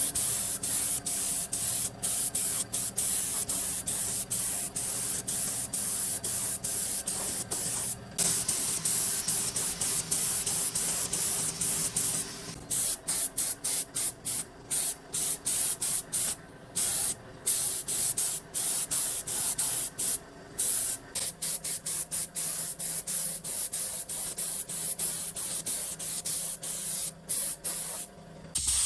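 Compressed-air spray gun hissing in many short bursts, the trigger released for split seconds between passes, over a steady low machine hum.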